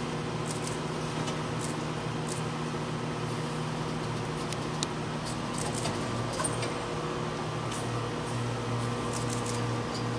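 Steady machine hum with several steady tones under it, with a few faint, scattered clicks.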